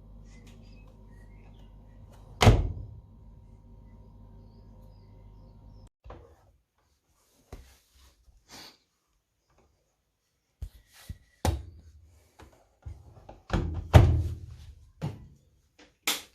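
Hotpoint vented tumble dryer running with a steady hum, with one loud thump about two seconds in; the hum cuts off about six seconds in. Then a scattered series of knocks and clicks follows, the loudest about fourteen seconds in.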